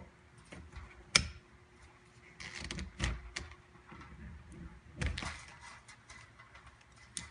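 Handling noise from an RTD cable being pulled out through a transpirator hose: scattered knocks and short stretches of scraping, with the sharpest knock about a second in.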